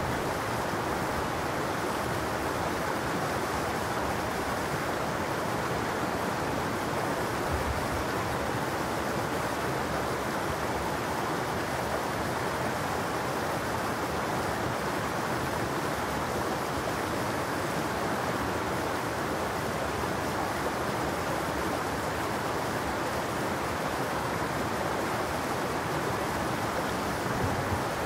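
Clear, shallow mountain stream babbling steadily as it runs over rocks and through a small riffle between boulders.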